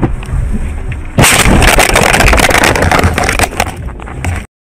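Low road rumble inside a moving car, then about a second in a sudden loud crackling noise burst that lasts about two seconds, dies down and cuts off abruptly.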